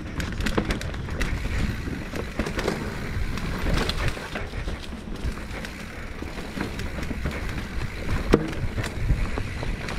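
Full-suspension mountain bike (Giant Trance X 29) riding down a dirt trail: tyre noise on dirt and rocks, with the chain and frame rattling in many sharp clicks and knocks over a low rumble.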